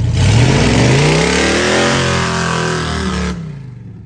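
Lifted Ford pickup mud truck's engine revving as it accelerates across dirt, rising in pitch over the first second or so, then fading as the truck pulls away.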